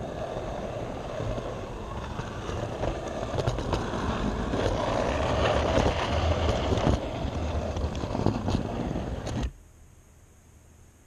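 H0 scale model train rolling along the track, heard from a camera riding on it: a steady rattling rumble with many small clicks from the wheels and track. It stops abruptly near the end.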